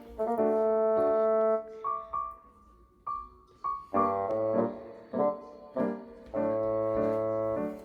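Background music: piano or keyboard chords and single notes, played in short phrases with pauses.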